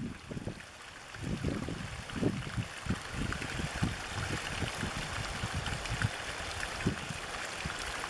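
A small stream of water pouring down an earth bank into a shallow pool: a steady rush and splash, with uneven low surges under it.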